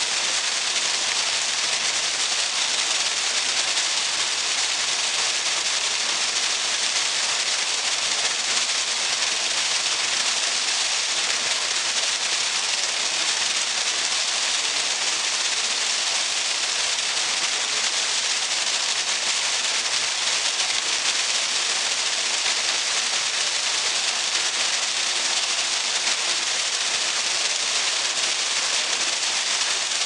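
Small waterfall splashing steadily into a pool: an even, unbroken rushing hiss.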